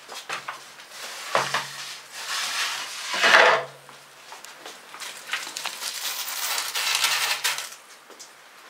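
Cut OSB panels being handled and laid on a workbench: uneven knocks and scraping of board on board, loudest a little over three seconds in, with another longer stretch of scraping and clatter near the end.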